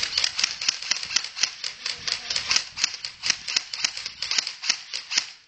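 A fast, unbroken run of sharp clicks, about seven or eight a second.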